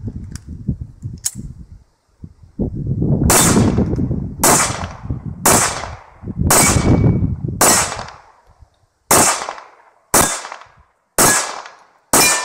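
A 9mm CZ75 Shadow SP-01 pistol fired nine times at steel targets, the shots about a second apart starting about three seconds in. Wind rumbles on the microphone under the first shots.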